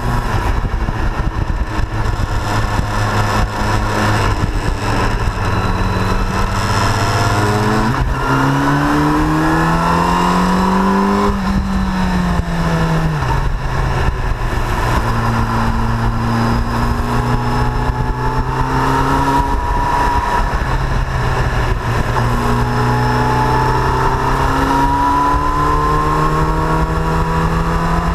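Yamaha FZ8 Fazer's 779 cc inline-four engine under way, heard on board over a steady rush of wind. Its pitch climbs steeply about a third of the way in, drops back a few seconds later, then rises gently twice more.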